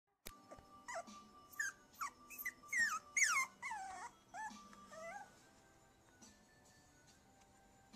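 Maltipoo puppy whining and whimpering in a quick run of short high-pitched cries that slide up and down in pitch, then trailing off after about five seconds. They are distress whines, the puppy pleading for help on a staircase it is facing for the first time.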